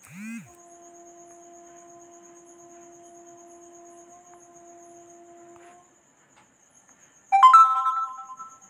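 A smartphone's incoming-message notification chime sounds about seven seconds in: a few bell-like tones that start suddenly and fade over about a second. Before it, a faint steady tone holds one pitch for about five seconds, over the faint high trill of crickets.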